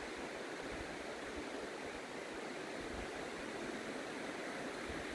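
Steady rushing of the Tutqun, a mountain river, flowing through the gorge.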